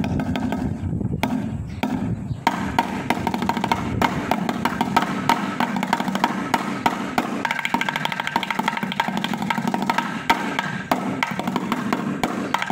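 Drumsticks beating a fast, steady pattern on an improvised kit of metal paint cans and tins.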